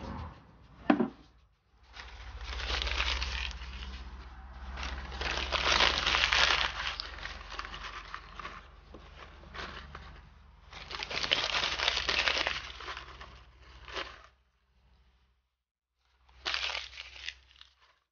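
Newspaper being crumpled and packed into a clay charcoal stove as kindling, crinkling and rustling in long stretches with a short pause before a last burst near the end. A sharp knock about a second in, as charcoal is handled with metal tongs.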